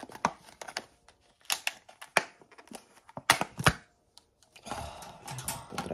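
Thin clear plastic food container being handled and opened, its lid giving several sharp separate clicks and crackles. Near the end a softer, longer rustle follows as the tub is raised to the face.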